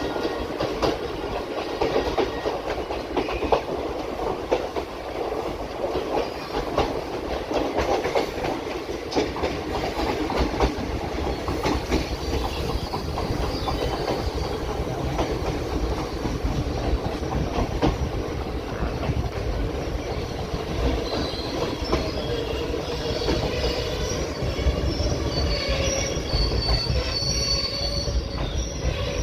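Sabroom–Sealdah Kanchanjunga Express passenger train rolling on the track, its wheels clicking over rail joints. Squealing wheels join in about two-thirds of the way through, the high squeal of wheels grinding against the rails.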